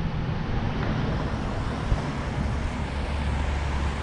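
A vehicle engine running steadily, a low hum under a broad rumble, with a single sharp knock about two seconds in.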